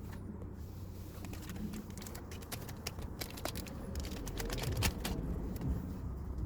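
Irregular light clicks and taps, like tools and small parts being handled, over a low rumble.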